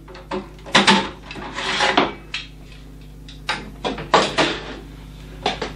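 Metal hard-drive trays being slid out of a QNAP NAS's drive bays, on rails that are a bit sticky: a string of clicks and knocks with short scraping slides, loudest about a second in and again around four seconds in.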